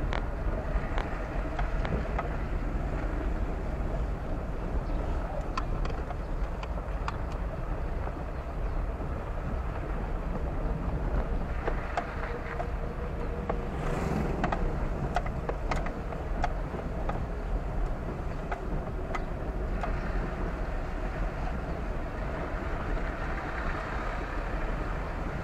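Steady running noise of a car being driven: a low rumble of engine and tyres on the road.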